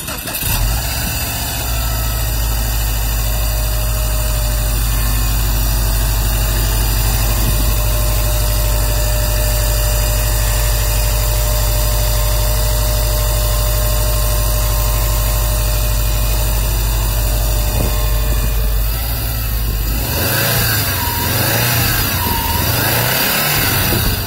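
Subaru WRX's turbocharged flat-four boxer engine idling steadily with the bonnet open. In the last few seconds the sound becomes uneven and wavers up and down.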